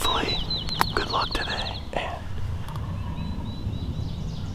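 A small songbird singing a run of short, high downslurred whistles that speed up into a fast trill and stop about two seconds in, with a fainter, slower series of the same notes later. A sharp click sounds close by just under a second in.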